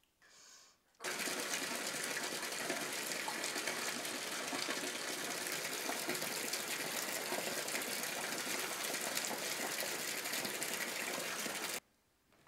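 Water gushing from a bathtub tap into a full tub: a steady rushing noise that starts abruptly about a second in and cuts off sharply near the end.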